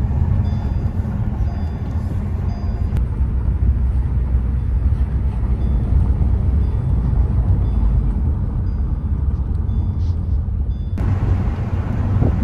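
Steady low rumble of wind and road noise inside a moving car with a window open.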